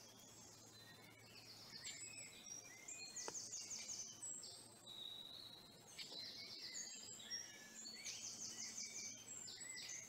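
A songbird singing two long, high song phrases of quick warbled notes broken by fast rattling trills.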